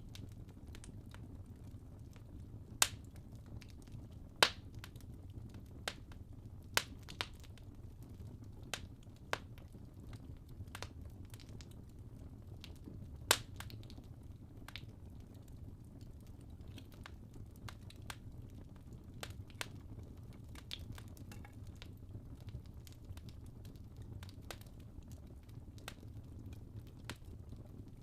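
Wood fire in a fireplace crackling over a low, steady rumble, with scattered sharp pops; the loudest come about three seconds, four and a half seconds and thirteen seconds in.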